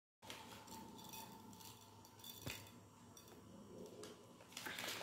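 Near silence: faint room tone with a single light click about halfway through and a few faint handling noises near the end.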